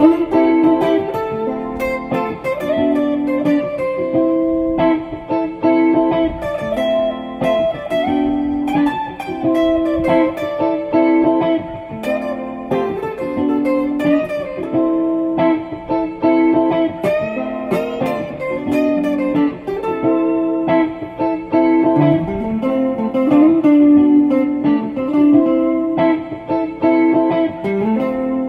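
Background music: a plucked guitar instrumental in a repeating figure, with some sliding notes.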